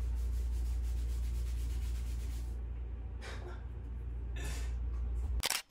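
A hand rubbing over freshly buzzed short hair, making a few brief rasping scrapes, over the steady low hum of electric hair clippers left running. A louder scrape comes near the end, then the sound cuts off.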